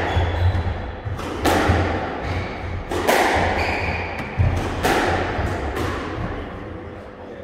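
A squash rally: the ball cracks off rackets and walls about four times, roughly every one and a half seconds, and each hit rings on in the enclosed court.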